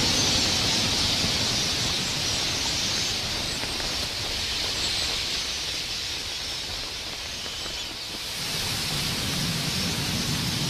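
A huge flock of red-billed queleas in flight: a dense, steady hiss of countless wingbeats and twittering calls, easing off about eight seconds in and then swelling again.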